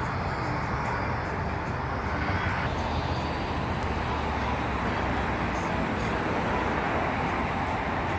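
Steady roar of distant jet engines and traffic, an even rumble and hiss that does not rise or fall.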